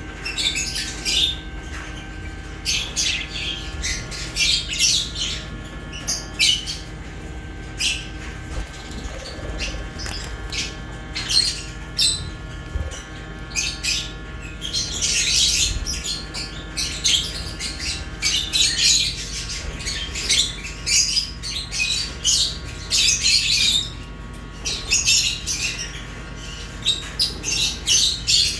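Pet budgerigars and lovebirds chirping and squawking in a constant chatter of short, rapid high calls, over a faint steady hum.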